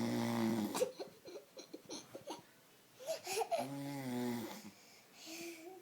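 A sleeping man snoring: two long, loud snores about three seconds apart, with a few short clicks and breaths between them and a breathy exhale near the end.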